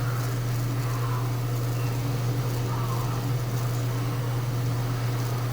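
A steady, unbroken low mechanical hum from a running machine, with no sound coming from the speaker under test.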